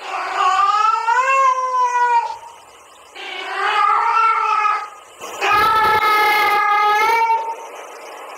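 Female cat's mating call: three long, drawn-out yowls of about two seconds each, wavering up and down in pitch, the caterwauling of a female cat in heat.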